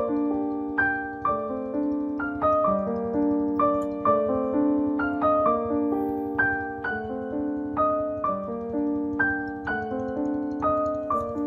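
Piano music: a steady melody of struck notes, each fading after it is played, over a repeating lower accompaniment.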